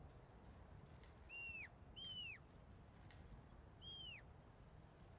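Faint shepherd's whistle commands to a working sheepdog: three short whistles, each held briefly and then dropping sharply in pitch. Two come close together about a second in, and a third follows about a second and a half later.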